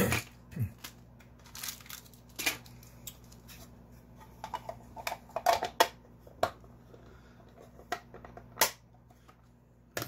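Small plastic zip bags of electronic parts crinkling as they are handled and set down on a wooden desk, with scattered sharp clicks and taps, the loudest a little past halfway.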